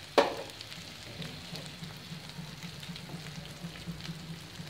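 Masala paste of onion, garlic and ginger frying gently in oil in a pan, with a soft, steady sizzle and small crackles. A single sharp click comes a fraction of a second in.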